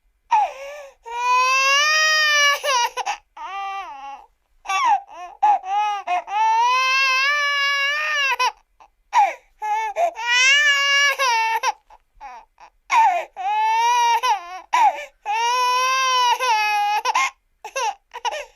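Cartoon crying sound effect: a high-pitched voice wailing in long sobbing cries, one after another with short breaks, each cry arching up and then down in pitch.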